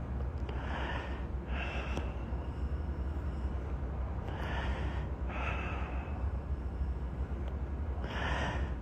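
A man with a cold breathing heavily close to the microphone: three slow breaths about four seconds apart, each an in-breath followed by an out-breath. A steady low hum runs underneath.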